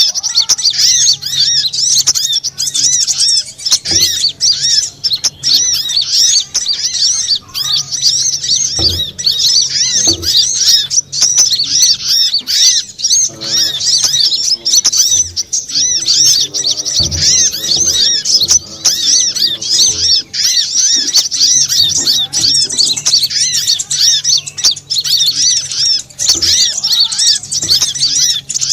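Sunbirds chirping, played as a bird-trapping lure call: a dense, unbroken run of rapid, high-pitched chirps and trills, repeated over and over.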